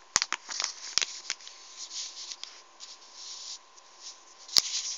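Clear plastic packaging of a geometry set crinkling and crackling as it is handled, with a string of sharp clicks; the sharpest click comes near the end.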